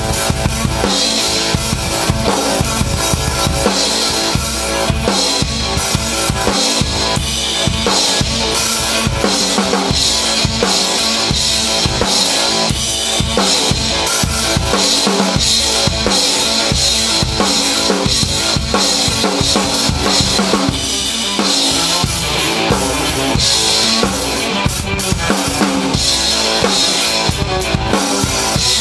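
Drum kit and electric guitar playing together live: a continuous beat on kick, snare and cymbals under electric guitar.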